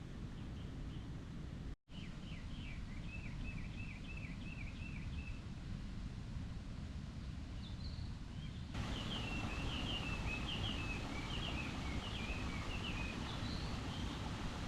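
Outdoor ambience of a steady low rumble with small birds singing: runs of short, quickly repeated high chirps, heard twice. There is a brief drop-out about two seconds in.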